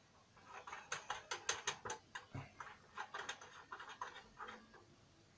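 Lampshade being fitted onto the top of a floor lamp: a quick, uneven run of small clicks and rattles, with one dull knock a little after two seconds.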